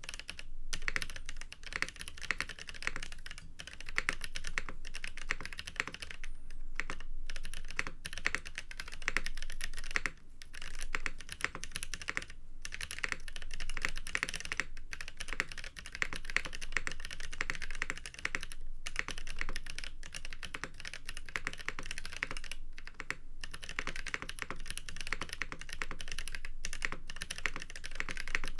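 KBD8x MKII mechanical keyboard with Boba U4T tactile switches being typed on in a rapid, continuous run of key presses, with a few brief pauses. The deep, muted keystroke sound keyboard hobbyists call 'thocc'.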